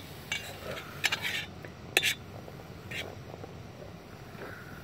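Metal fork clinking and scraping against a frying pan while turning bacon, a few sharp clinks roughly a second apart.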